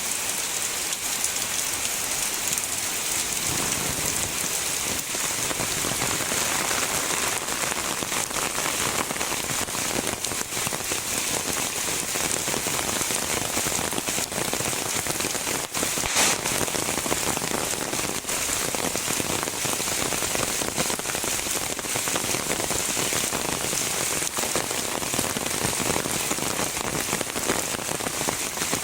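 Heavy rain falling steadily, a dense even hiss with many individual drops ticking through it. One louder drop strikes about 16 seconds in.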